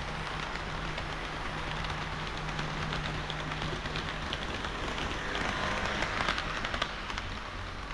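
HO-scale model train of Kiha 40 and Kiha 58 diesel railcars running along the layout track: a steady rattle of small wheels on the rails, with a low motor hum and rapid clicks over the rail joints. It grows louder a little past halfway.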